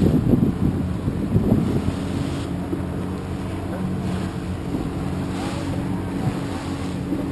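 Motorboat engine running steadily under way, with wind buffeting the microphone in gusts that are heaviest in the first two seconds.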